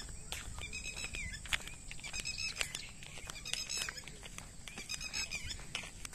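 Short animal calls repeating every second or so, each bending up and down in pitch, over a steady high whine and scattered light clicks.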